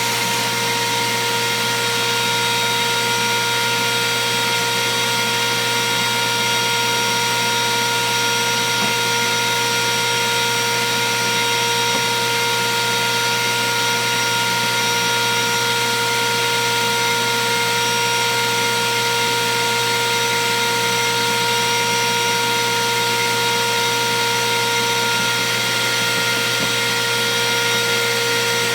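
Table-mounted router running at a steady high speed, a constant whine over an even rushing noise, its pitch not changing.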